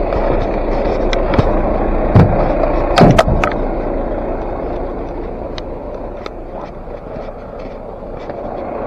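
Vehicle engine running steadily, slowly easing off, with a few sharp knocks and clicks, the loudest cluster about three seconds in.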